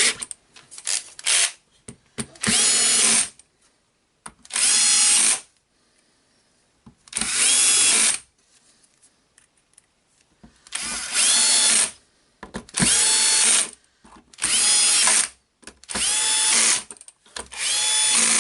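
Cordless drill-driver running in short bursts, about eight times, each starting with a rising whine, as it drives screws into the jigsaw's plastic housing.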